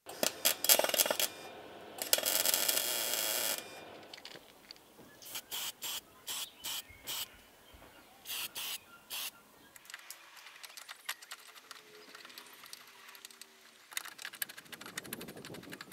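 An aerosol spray can hisses for about a second and a half. Scattered sharp clicks and taps of metal follow as a bolt-on steel mounting plate is fitted into a car door frame.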